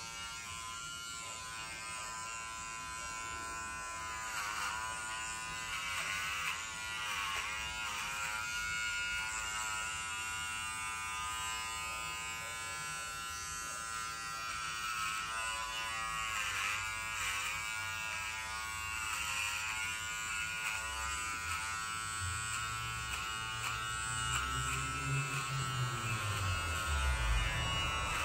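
Small handheld electric pet clipper buzzing steadily as it trims the fur between a dog's paw pads. Its pitch dips briefly several times as it works through the fur.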